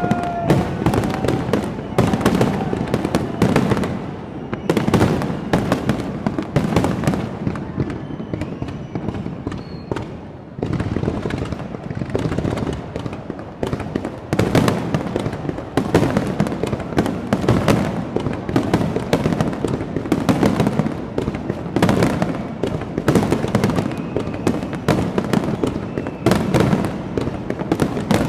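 Fireworks display: dense, near-continuous bangs and crackling bursts, easing off briefly just before ten seconds in and then coming back at full strength.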